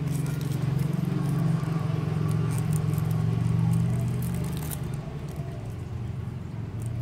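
Thin hologram foil crinkling in the fingers as it is folded around a metal jig lure, over a steady low hum that is the loudest thing heard and eases off a little after about five seconds.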